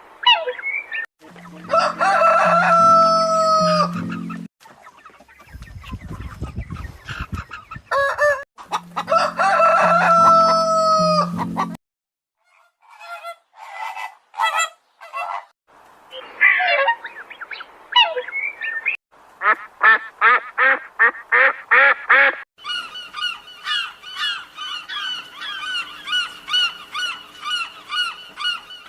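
Farmyard fowl calling. A rooster crows twice, the same long crow both times, then there is clucking and a quick, even run of calls. From about two-thirds of the way through, a flock of domestic waterfowl calls without a break, several honking calls a second.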